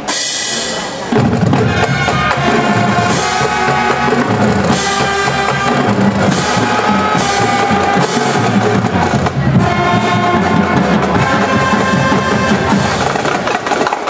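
Marching band playing brass with drums. It starts suddenly, with the low brass and drums coming in fully about a second in.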